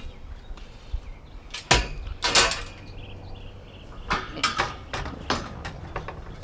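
Pieces of scrap metal knocking and clanking as they are pulled out and handled, in several separate clanks. The loudest comes about two seconds in, and a quicker run follows near the end.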